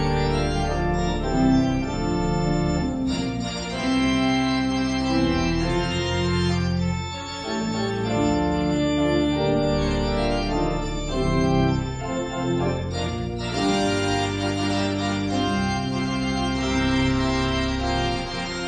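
Organ playing full, sustained chords that move from one to the next without a break.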